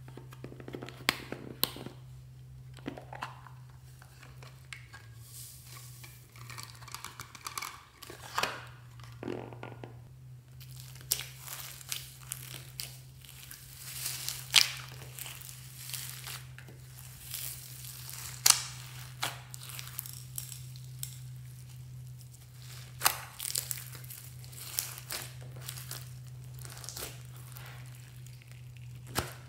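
Hands kneading and stretching clear slime packed with foam beads, glitter and sequins in a glass dish: sticky clicks, pops and crackles, scattered at first and coming thick and fast from about ten seconds in. A steady low hum sits underneath.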